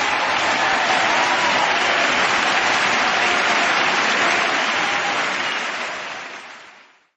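Audience applauding steadily, then fading away near the end.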